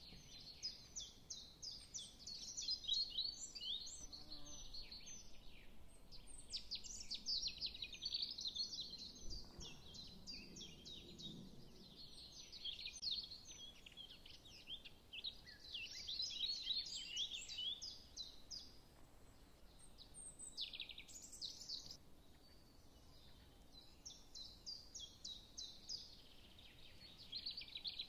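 Small birds twittering in bouts, a rapid chatter of short high chirps with brief lulls.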